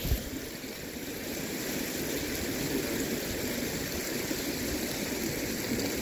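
Swollen, fast-flowing creek rushing steadily, with a brief knock right at the start.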